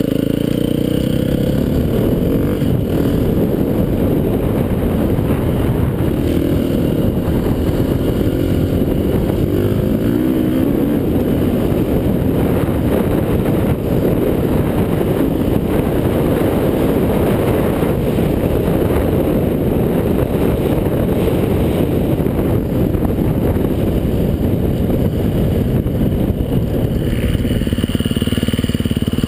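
Close-up sound of a 350cc single-cylinder four-stroke enduro motorcycle ridden hard over rough dirt, its engine revving up and dropping back again and again, with a heavy rush of wind and ground noise on the microphone.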